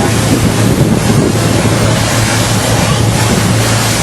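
Motorboat under way: a steady low engine drone under dense rushing noise of wind buffeting the microphone and water.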